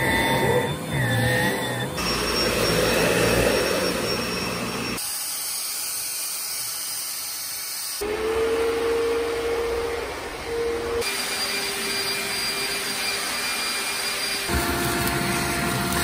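Several vacuum cleaners running in turn, a few seconds each, among them a Bissell Pet Pro handheld and a Bissell CrossWave cordless floor cleaner. Each gives a steady motor whine over airflow hiss, and the sound changes abruptly about every three seconds as one machine gives way to the next.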